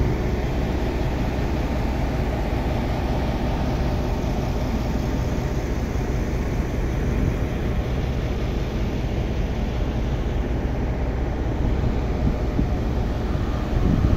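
Diesel rail engine running steadily at idle, a low even hum with a rougher, louder patch near the end.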